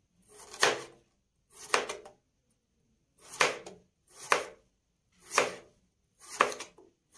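Kitchen knife slicing raw peeled potatoes into thin rounds on a plastic cutting board: six separate cuts, roughly a second apart.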